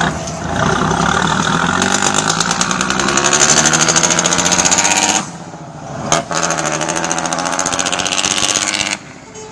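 FNM truck's diesel engine revving hard under load as the truck pulls away, its note climbing. About five seconds in it drops off for a gear change, with a short click, then pulls again in the next gear.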